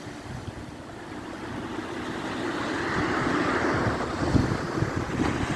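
Wind buffeting the microphone over a rushing wash of sea surf, swelling louder about halfway through, with a few low thuds from the gusts.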